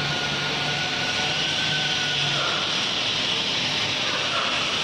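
Four-axis mold CNC router running, its high-speed spindle giving a steady whine over a loud, even hiss. The whine fades about halfway through and returns near the end.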